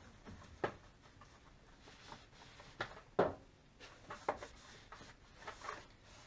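Hand-cleaning of engine bay plastics: a rag rubbing over the air box, with several light, sharp knocks of parts and a spray can being handled, the loudest a little after three seconds in.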